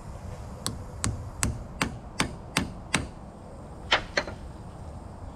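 Hammer tapping an E5 inverted Torx socket down onto a small screw on a 7.3 Powerstroke injector, seating it squarely so the tiny screw does not strip. Seven quick, even taps, then two more after a short pause.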